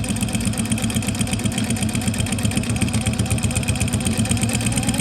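SMITCH SM6-7d compound-feed walking-foot industrial sewing machine running steadily, stitching a seam with a fast, even rattle of the needle and feed.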